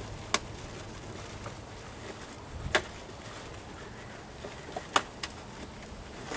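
Four short, sharp knocks, a second or two apart, the last two close together, over a steady faint background noise.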